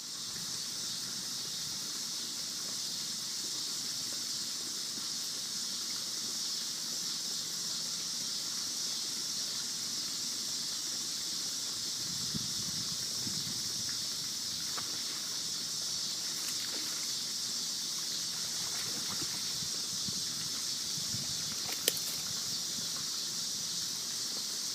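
Steady high-pitched chorus of night insects, crickets or katydids, with one sharp click near the end.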